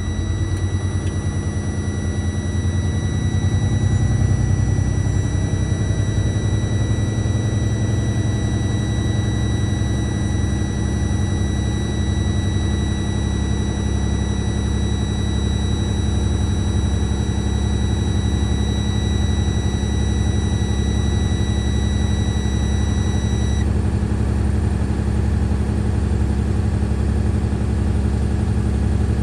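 Freightliner truck's diesel engine running at a raised idle to build air pressure in the air brake tanks. A steady high beeping tone, the low-air warning buzzer, sounds over the engine and cuts off suddenly about 23 seconds in as the pressure rises past its warning point.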